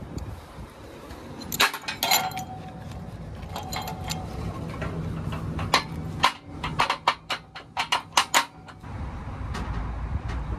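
Metal clanks and clicks of car-hauler wheel tie-down straps being worked: hooks and ratchet knocking on the perforated steel ramps. Two ringing clanks come about two seconds in, and a quick run of sharp clicks follows from about six to eight and a half seconds. A low steady rumble takes over near the end.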